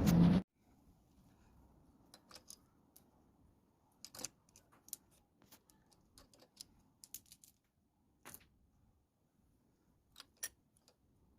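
CG 150 single-cylinder motorcycle engine, running with its valve cover off, shuts off abruptly about half a second in. Scattered light clicks and taps follow.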